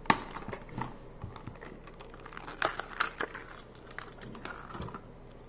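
Clear plastic packaging crinkling in the hands, with scattered small clicks and taps of hard plastic parts; one sharp click just after the start and a flurry of clicks around the middle.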